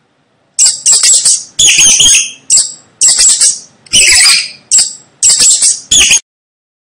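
Mouse squeaking: high-pitched chittering squeaks in about eight quick bouts over some five seconds, starting about half a second in and stopping suddenly near the end.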